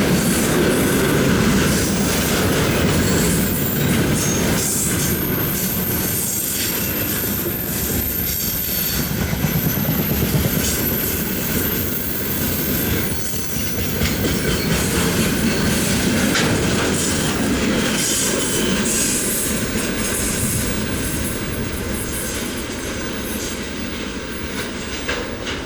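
Freight wagons of a train hauled by a VL80S electric locomotive rolling past at speed, wheels clattering over the rail joints with a thin high squeal through the middle stretch; the noise eases off slightly near the end.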